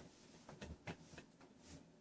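Near silence: room tone with a few faint, short clicks in the first half.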